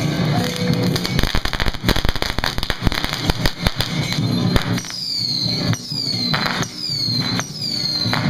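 A string of firecrackers crackling in a rapid, dense run of bangs. About halfway through it gives way to steady percussion strikes for the lion dance, roughly one a second, each leaving a high ringing tone that falls in pitch.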